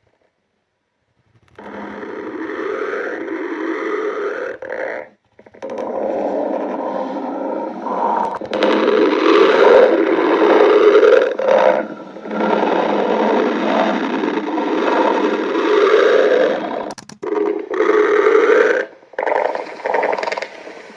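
Stomach growling: long, rough rumbling gurgles, one after another with short breaks, starting after a second and a half of silence and loudest about halfway through.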